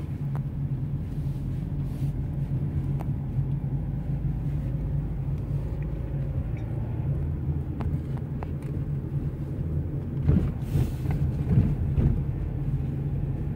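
Car engine and road noise heard inside the cabin of a moving car: a steady low rumble, with a brief swell about ten seconds in.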